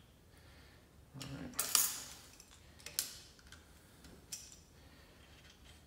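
Small metal parts clinking as nuts are handled and started back onto the drill press's quill return-spring housing: a clatter about a second in, a sharp click near three seconds, then a few lighter taps.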